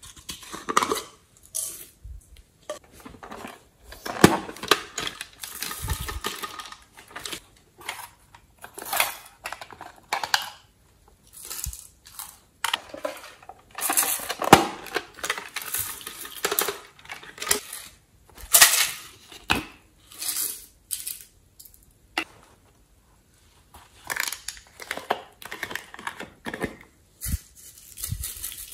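Hard plastic toy containers being handled and opened close to the microphone: irregular clicks, taps, clatters and rustles of plastic.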